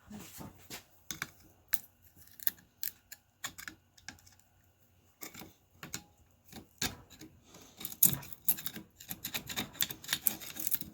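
Float and switch parts of a Zoeller M57 sump pump being worked loose: irregular small clicks and taps of hard parts, coming thicker over the last three seconds.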